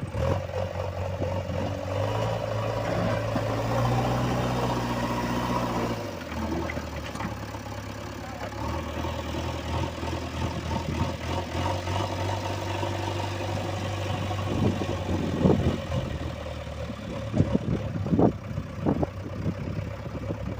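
JCB 3DX backhoe loader's diesel engine running, working harder for a few seconds as it lifts and then easing back to a steady run. Several sharp knocks come near the end, as the bucket or its load strikes.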